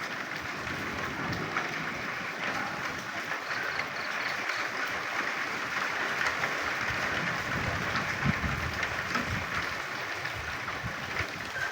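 Steady rain falling, with frogs croaking in short calls over the hiss of the rain.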